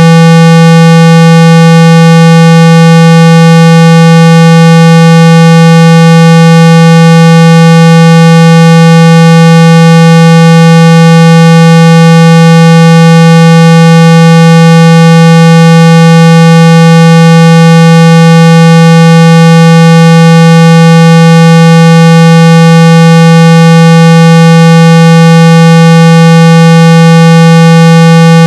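A loud, unchanging 165 Hz tone: a low steady hum with fainter higher overtones, played to shake water and dust out of a phone speaker.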